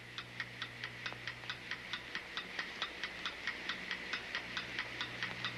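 Clock ticking sound effect: quick, even ticks, about five a second, over a faint low steady hum.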